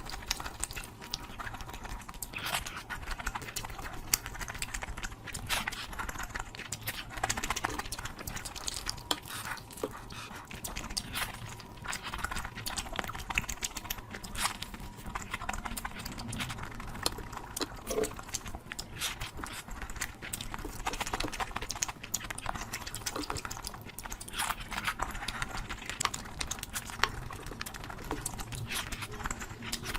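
Close-miked eating sounds of someone taking big bites of curry: wet chewing, smacking and slurping, with many irregular small clicks a second.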